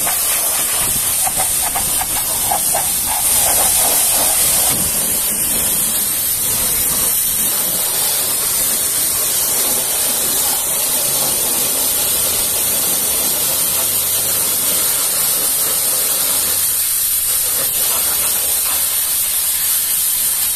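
High-pressure washer jet hissing steadily as it blasts mud off a truck's steel toolbox and leaf-spring suspension.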